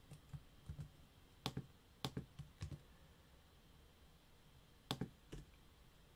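A handful of scattered computer keyboard and mouse clicks, sharp and separate, the clearest about a second and a half in and again near five seconds, over a quiet room.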